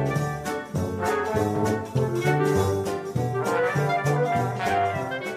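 Background music: a brass-led tune with trumpets and trombones playing over a steady beat.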